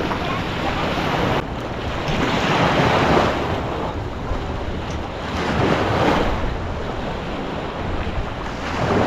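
Wind buffeting the microphone over rushing water, the water noise swelling and easing every two to three seconds.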